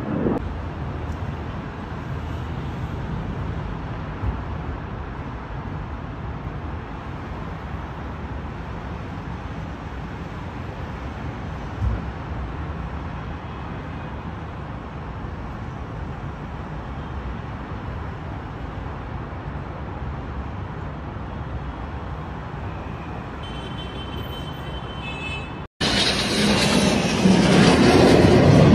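Dassault Mirage 2000 single-engine jet fighter flying over: a steady, distant jet rumble for most of the time. Near the end, after a brief cut, a much louder noise from a close low pass overhead swells and peaks.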